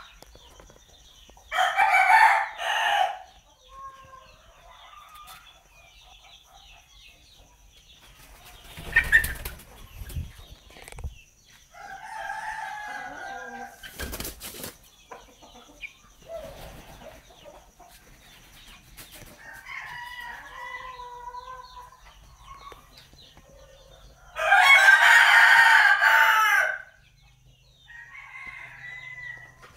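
Young Tre bantam cockerel clucking and calling, with a loud call early on and a long, loud crow about two-thirds of the way through. Two sharp thumps come in between, one around a third of the way in and one about halfway.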